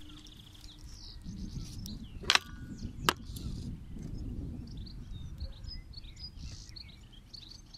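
Small birds chirping in short high calls over a steady low rumble of wind on the microphone. Two sharp clicks come a little over two and three seconds in.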